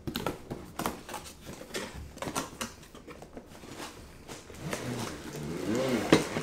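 Cardboard box being opened and unpacked by hand: quick rustles, scrapes and clicks of cardboard and packaging. Near the end, the laundry sorter's metal frame tubes slide out against the box with a short rising-and-falling squeak and a sharp clack.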